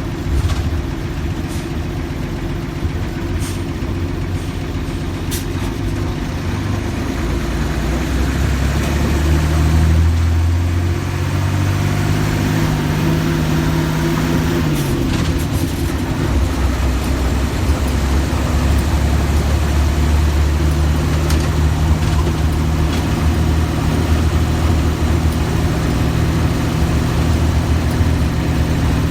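Mercedes-Benz OF-1315 bus's diesel engine running, with a few sharp clicks in the first seconds. Its pitch rises about eight seconds in, eases back down over the next few seconds, then settles into a steady idle.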